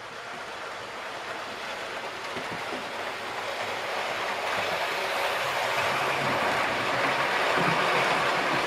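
Model train running on the layout's track: the rumble of its wheels on the rails grows steadily louder as it approaches and then runs past close by.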